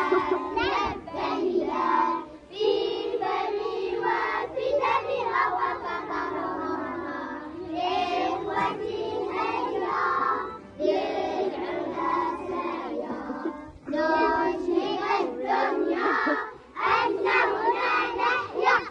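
A group of children singing together in unison, in long held phrases with short breaks between them.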